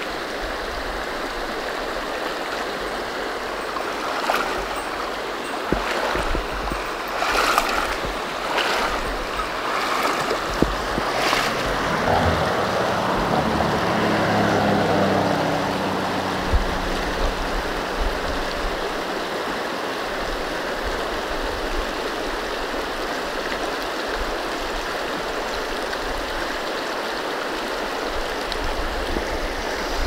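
Creek water rushing steadily through corrugated metal culverts and over a shallow gravel riffle. A few short sharp knocks come between about four and eleven seconds in, and a low hum swells and fades around the middle.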